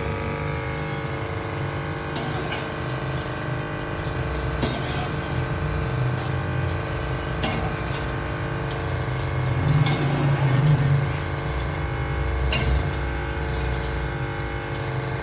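Fried bitter gourd slices being scooped out of hot oil with a metal skimmer: a steady sizzle of the oil, with the skimmer clinking against the steel pan and strainer several times, over a steady hum.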